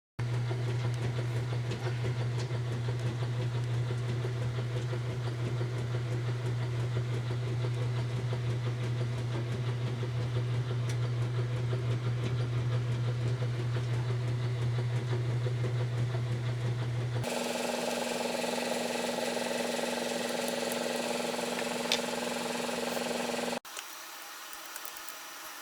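Honda Accord four-cylinder engine idling steadily. The sound changes abruptly about two-thirds of the way in, then drops suddenly to a quieter hiss near the end.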